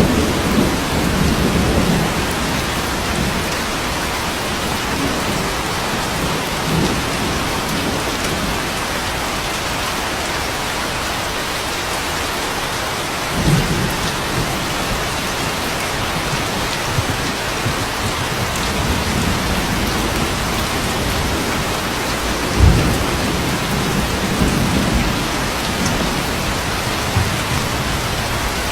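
Steady rain with thunder rumbling several times: once at the start, once about 13 seconds in, and again from about 19 to 25 seconds, strongest near 23 seconds.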